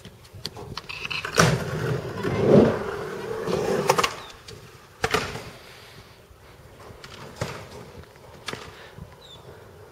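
Skateboard on concrete: a sharp clack about a second and a half in, then wheels rolling for a couple of seconds with more clacks, another hard hit about five seconds in, and fainter knocks later.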